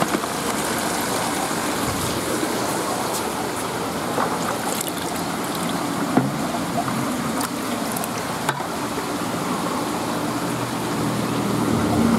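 Aerator air stone bubbling steadily in a bucket of water, with a couple of light clicks.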